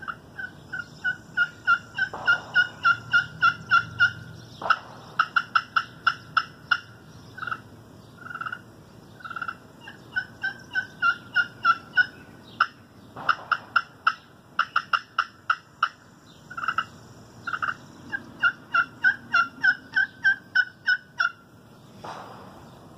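Tusky River wild cherry striker run on a slate-over-glass turkey pot call, giving long series of short turkey-like calling notes, about three a second, broken by a few quicker runs of notes.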